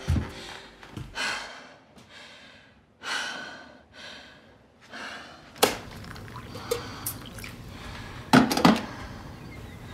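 A woman breathing hard, two long audible breaths in the first few seconds. Then comes a sharp click, and near the end a couple of loud knocks from kitchen things being handled at the sink.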